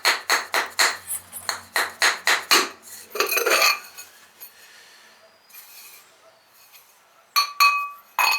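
Glaze-fired ceramic pots, stuck together in the firing, being knocked apart: a quick run of sharp clinks, about four a second, for the first few seconds. Near the end come a few more ceramic clinks, one with a short ring.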